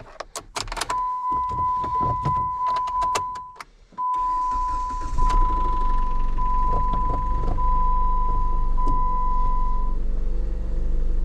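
2016 Jeep Patriot turned over with the key: a few clicks, then a dashboard warning chime beeping steadily. About four seconds in, the four-cylinder engine cranks briefly, catches and settles into a steady idle under the chime. It is the first start after repairing the ECM/PCM power relay circuit that had kept it from starting.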